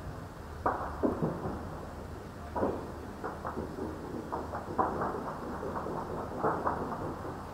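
Distant heavy gunfire: about a dozen sharp reports, some single and some in quick clusters of two or three, over steady low background noise. It comes through muffled live-feed audio with the top end cut off.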